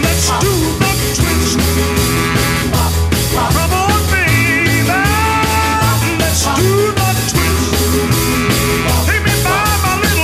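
Rock music with a steady drum beat and a repeating bass line; around the middle a lead line slides up and down in pitch.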